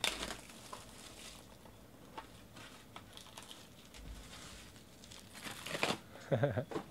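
Plastic wrap crinkling and tearing as a sealed trading card box is unwrapped and its cardboard lid opened, with scattered rustles and light clicks. There is a louder rustle about six seconds in, then a short low sound.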